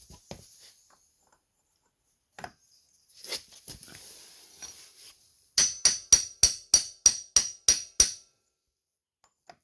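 Hammer striking a socket held against the steel lock washer on a Yamaha Banshee's front sprocket nut, bending the washer flat. After some light knocks and handling, there is a quick run of about nine sharp metallic blows with a high ring, roughly three or four a second.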